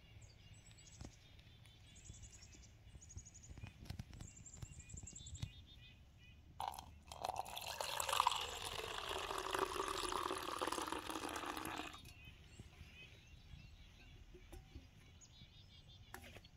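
Coffee being poured into a stainless steel cup: a steady pour running about five seconds from roughly seven seconds in, ending abruptly.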